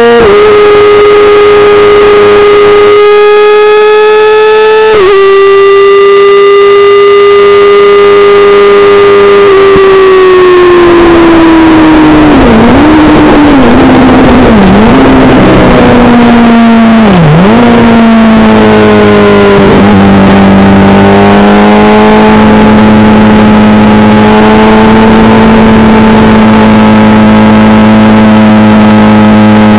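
Suzuki GSX-R sport bike's inline-four engine heard from an onboard camera over wind noise. It holds steady revs with a small step down about five seconds in. Its pitch then falls and wavers through several dips as the bike slows, and it settles to a steady lower drone near the end.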